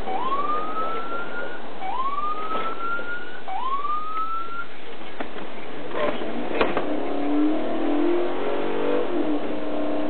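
Police car siren giving three short rising whoops, each about a second and a half, over the steady road and engine noise of a patrol car driving fast. A couple of sharp knocks come just past the middle, and engine tone stays up through the second half.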